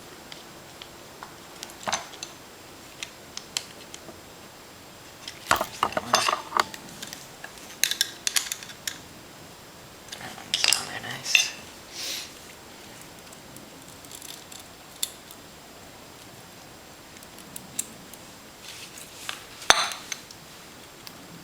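Small screws and a screwdriver clinking and clicking on metal in irregular clusters as the fuel pump's housing screws are set and tightened. The sharpest clinks come about a third of the way in, around halfway and near the end.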